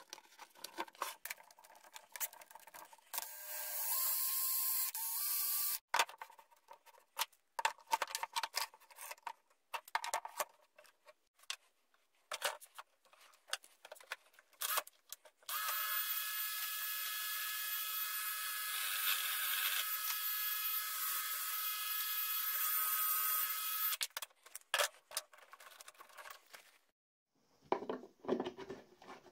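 Cordless drill running at a steady speed twice, first briefly and then for about eight seconds, between knocks and clicks of wood and tools being handled; near the end, wood rubbing as a wooden handle is turned.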